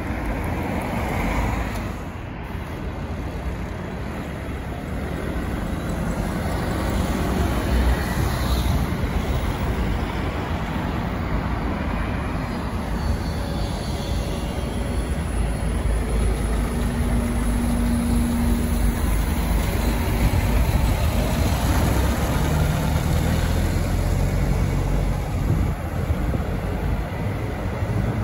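Mixed city road traffic with red London buses and cars driving past: a steady rumble of engines and tyres that swells as vehicles go by, with a short low hum about two-thirds of the way through.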